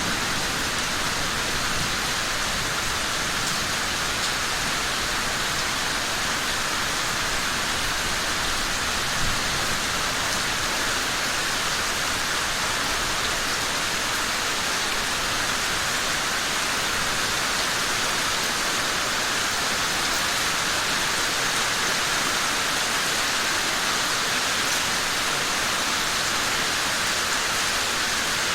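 Steady heavy rain falling, a continuous even hiss of drops with no breaks.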